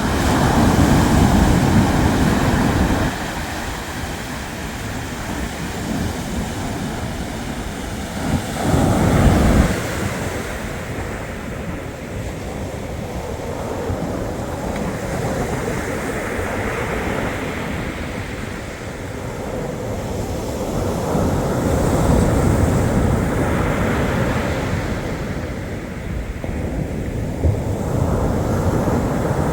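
Black Sea surf washing on the shore as a steady rush, with louder surges in the first few seconds, around nine seconds in and again past twenty seconds. Wind buffets the microphone.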